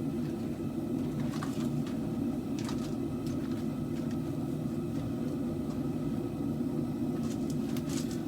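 Steady low rumble of a running forge heating a blade, with a few faint clicks.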